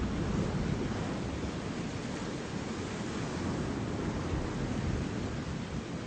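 Pacific Ocean surf washing steadily, with wind buffeting the microphone.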